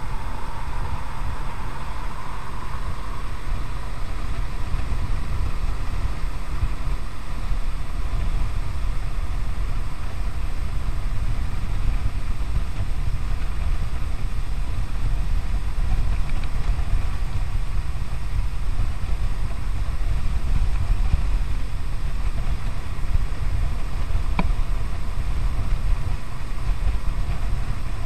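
Kawasaki W800's air-cooled parallel-twin engine running steadily at cruising speed, heard as a low rumble mixed with wind noise on a chest-mounted action camera's microphone.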